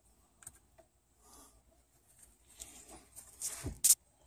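Nitrile-gloved hands working a rubber piston seal into the groove of a brake caliper's piston bore: faint rubbing and small clicks, then a louder handling noise and a sharp click near the end.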